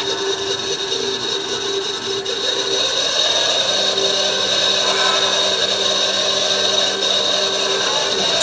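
CNC lathe spindle motor running on a variable-frequency inverter: a steady electric motor whine made of several held tones, with a high-pitched tone that glides upward about two seconds in.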